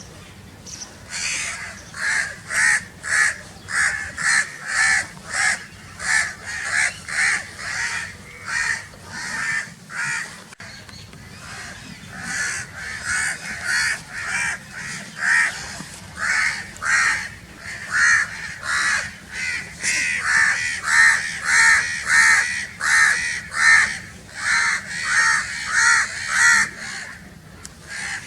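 Crows cawing loudly and continuously, a rapid string of harsh caws at about two a second, with a brief lull about ten seconds in.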